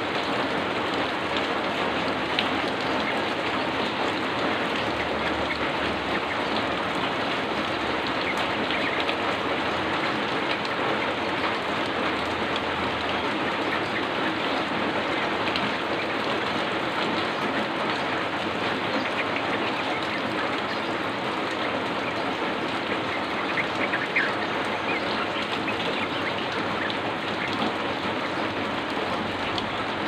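Heavy rain falling, a dense steady hiss of raindrops.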